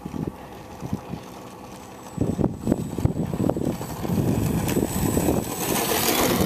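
Strong gusty wind buffeting the microphone in uneven low rumbles, growing louder about two seconds in and again near four seconds. A faint steady high whine runs underneath.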